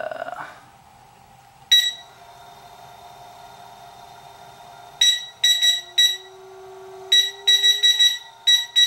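The Vibro Balance fitness machine's electronic beeper sounding one loud beep, then quick runs of short beeps as the speed is stepped up. Under the beeps its DC drive motor, rated 3,600 RPM and running without its belt, hums and rises in pitch as it speeds up toward full speed.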